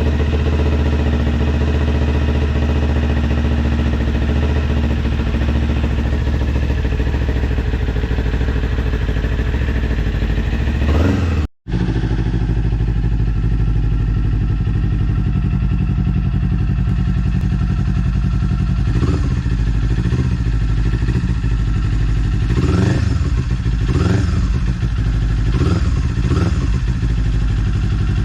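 Kawasaki Z400 parallel-twin with a Yoshimura R77 slip-on exhaust idling steadily, cutting out briefly a little before halfway. In the second half it is blipped in a series of short revs that rise and fall back to idle.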